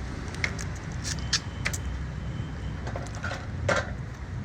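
Eating and food-handling noises: scattered sharp clicks and cracks, the loudest near the end, over a steady low rumble.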